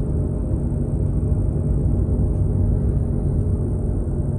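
Steady low rumble of road and engine noise inside a moving car's cabin, with a faint steady hum.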